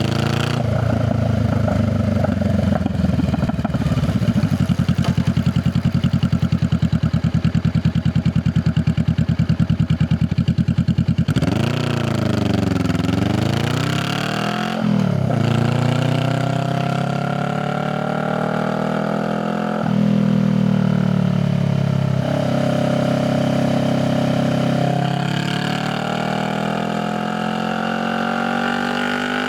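Honda Rebel 500's parallel-twin engine running at a steady pulsing idle, then the revs dipping and rising about twelve seconds in. It then accelerates through several gears, the revs climbing and dropping at each upshift.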